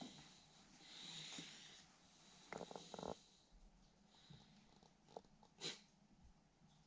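Near silence: faint room tone with a few soft, quick taps and a brief tick.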